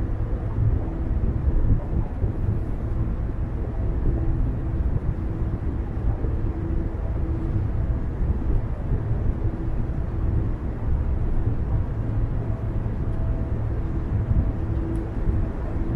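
Steady low rumble of a car driving: road and engine noise, with a faint hum that comes and goes.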